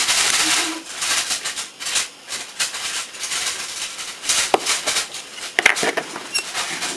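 Scratchy rustling of metal tweezers rubbing Tamiya masking tape down onto a plastic model's panels, in uneven bursts. A few sharp clicks come in the second half.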